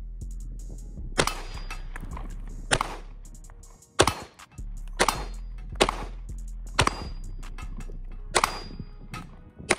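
Glock 19X 9mm pistol fired about eight times in slow, uneven succession, roughly a second apart. Several shots are followed by a short metallic ring from hits on steel targets.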